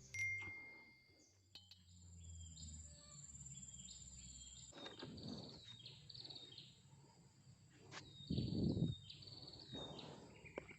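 Small birds calling outdoors: many short high chirps, several falling in pitch and repeated in quick series, with a thin high insect buzz running for a few seconds near the start. A few brief rushes of noise, the loudest about two-thirds of the way through, break in over a low hum.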